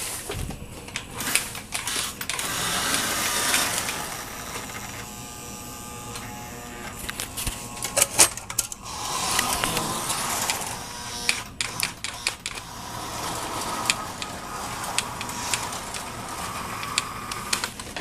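Lionel model electric train running along the track: motor and wheels whirring as it passes, with a steady run of sharp clicks and clacks as the wheels cross rail joints and a road-crossing piece. The whirring swells and fades several times as the train comes near and moves off.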